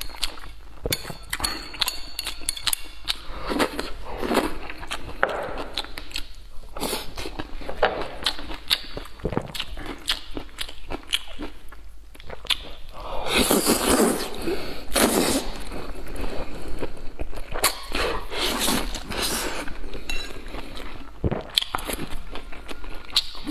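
Close-miked eating of wide noodles: metal spoon and chopsticks clicking and scraping in a stone-glaze bowl, with wet chewing. There are loud slurps of the noodles about halfway through and again a few seconds later.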